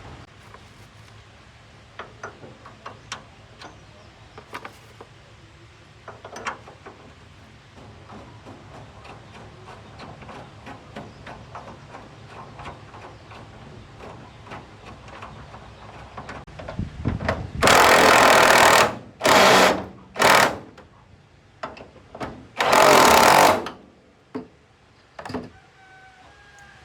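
Scattered small clicks and knocks of handling work, then a power tool run in four short, loud bursts near the end.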